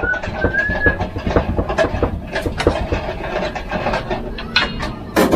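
Spoons and forks clinking and scraping against plates and a metal bowl of rice as food is served and eaten: many small irregular knocks, with a louder clatter near the end, over a steady low hum.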